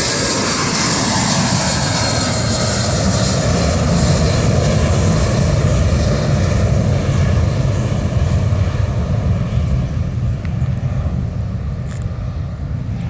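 BAe 146 jet airliner running its four turbofan engines at high power, a loud roar with a high whine that falls in pitch as the aircraft passes, then fades somewhat near the end.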